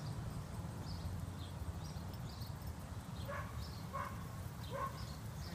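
A dog barking repeatedly, about once a second, starting about three seconds in, over a steady low rumble.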